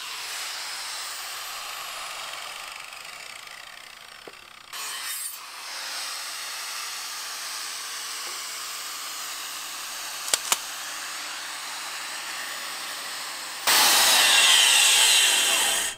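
Corded electric angle grinder with a sanding disc running against the steel tractor dash panel, sanding off the old paint. A steady whine, with a short dip about five seconds in and much louder over the last two seconds before stopping abruptly.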